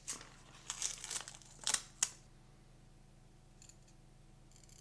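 Masking tape being peeled off a small diecast model car: a run of short crackling rips over the first two seconds, then near quiet.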